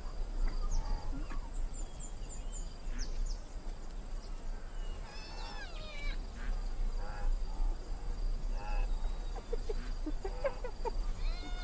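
Spotted hyenas calling: short, high whining squeals that rise and fall in pitch, in small groups about five seconds in and again near the end, with a run of short clipped notes between them. A faint steady low hum lies underneath.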